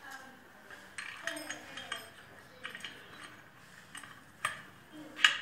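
Irregular metal clinks and taps of a spanner on a bolt and washer, tightening a bolt that holds the clutch on a small mower engine. The clinks come at uneven intervals, the loudest near the end.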